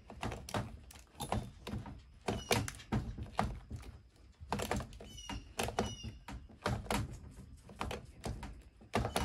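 Irregular plastic clicks and knocks from a Maruyama M-Twist string-trimmer head being twisted by hand as it winds new trimmer line in, with a few short high squeaks.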